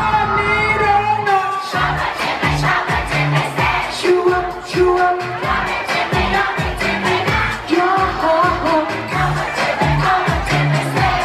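Thai pop song with male vocals over a steady dance beat; the drums drop out briefly and come back in about two seconds in.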